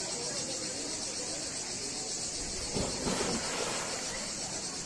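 Insects buzzing steadily in a high, even drone, with a brief rush of louder noise about three seconds in.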